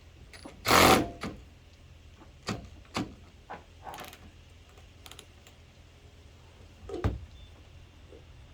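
Tools and tailgate-assist parts being handled during the install: a loud clunk about a second in, then scattered light clicks and taps, with one more knock near the end.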